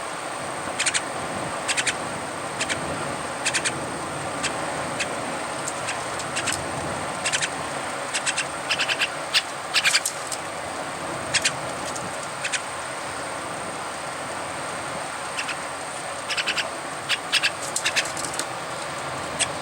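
White-cheeked starling chick giving short, sharp calls, one at a time or in quick clusters at irregular intervals, over a steady background hiss.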